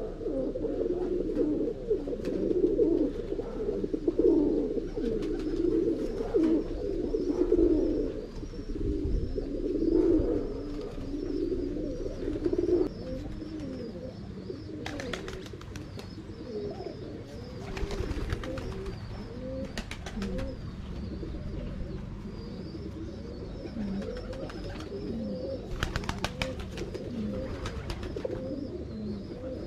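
Domestic pigeons cooing, many low overlapping coos at once. The cooing is dense and loud at first and thins out and grows quieter after about 13 seconds, with a few brief clicks.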